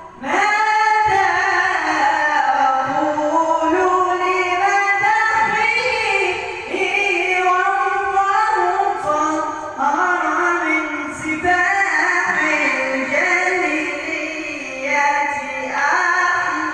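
A high voice singing an Arabic Islamic ibtihal (devotional supplication), in long ornamented phrases that wind up and down in pitch, with short breaks between phrases.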